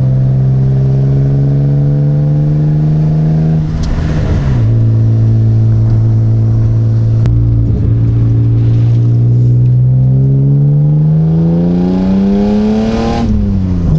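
BMW E36 engine running with no muffler fitted, heard while driving: a loud, steady exhaust drone that drops in pitch with a gear change about four seconds in, holds, then climbs as the revs rise and drops again with another shift near the end.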